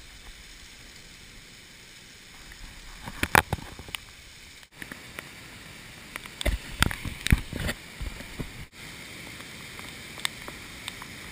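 Flash-flood waterfalls pouring down the canyon walls and muddy floodwater rushing, a steady noise. Several loud thumps come about three seconds in, and a cluster of them between six and eight seconds in.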